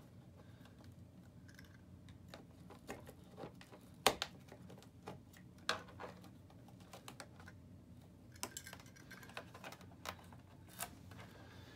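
Scattered small clicks and snaps of a Tesla Model S plastic door sill plate being pried and cut free of its glue with a plastic pry tool and a knife, the sharpest snap about four seconds in.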